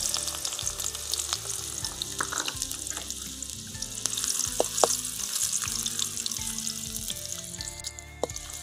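Chopped onion sizzling in hot oil in an aluminium kadai, frying to brown. A steel spatula stirring it gives a few sharp taps and scrapes against the pan.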